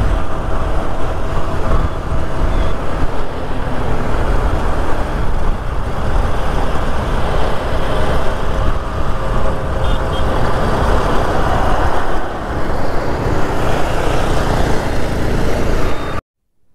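Motorcycle on the move: steady engine note under heavy wind rush on the rider's microphone, with road traffic around. The sound cuts off suddenly near the end.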